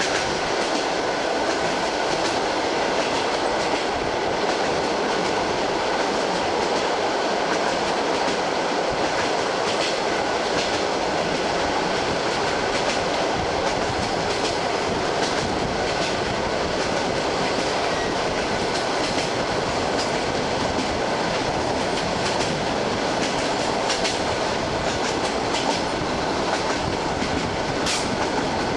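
ED9M electric multiple unit running at speed, heard from inside the carriage: the steady noise of the wheels on the rails with the clickety-clack of the rail joints.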